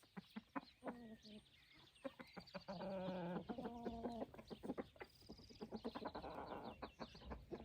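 Chickens clucking: a scatter of short clucks and clicks, with a few longer drawn-out calls about one, three and four seconds in.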